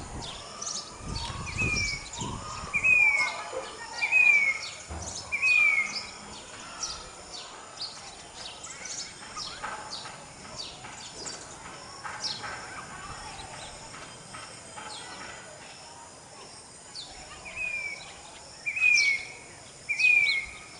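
Grey-bellied cuckoo calling: a run of four short falling notes, then after a long pause three more near the end, among the quick chirps of other birds.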